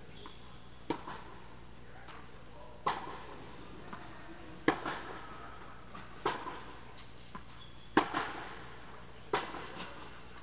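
Tennis rally: racket strikes on a tennis ball, each followed by a lighter bounce, coming about every one and a half to two seconds. The hits echo in a large indoor hall.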